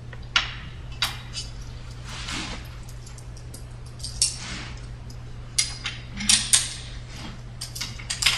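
Metal clinks and scrapes as a bolt is worked into a StairMaster stepper's eccentric hub assembly and lined up: irregular light taps with a couple of brief scrapes, over a steady low hum.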